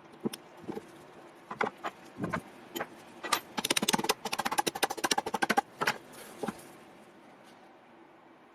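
Sharp knocks and clicks of hard tool parts being handled, with a fast rattling run of clicks in the middle lasting about two seconds.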